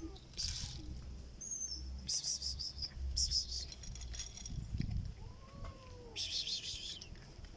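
A domestic cat vocalizing: one short call that rises and falls in pitch about five and a half seconds in, with several short hissy noises around it.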